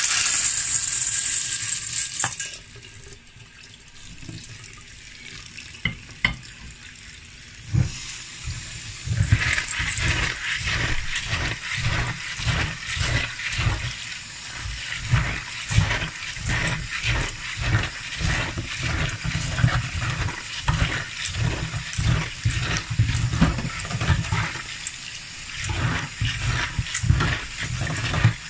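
Dry honey beans poured into a stainless steel colander, loud for about two and a half seconds. From about nine seconds in, tap water runs over the beans while a hand rubs and swishes them, in a steady run of repeated strokes.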